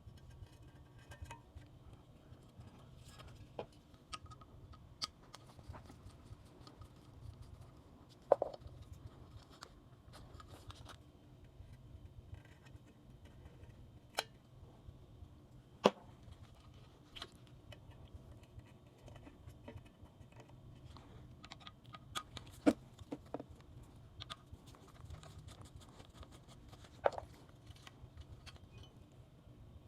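Scattered sharp clicks and clinks of hand tools and parts being handled during work on a motorcycle, the loudest about a quarter of the way in, twice around the middle and once near the end, over a steady low hum.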